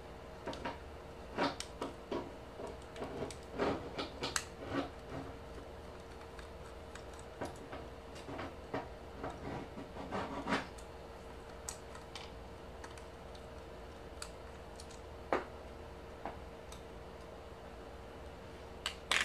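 Irregular light clicks and taps of a screwdriver, screws and hard plastic parts being handled as a Dyson cordless vacuum's cleaner head is taken apart, with a faint steady hum underneath.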